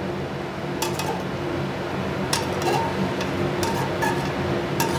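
Metal tongs and a metal sauté pan clinking against a ceramic plate as spaghetti is served, several sharp separate clinks over a steady low hum.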